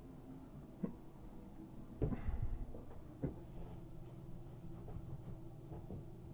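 A few short knocks and a brief clatter of parts and tools being handled at a bathroom faucet, the loudest cluster about two seconds in, over a steady low hum.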